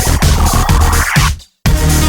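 Electronic dance music with a steady beat and a rising sweep, which cuts to a brief silence about one and a half seconds in before the beat comes back.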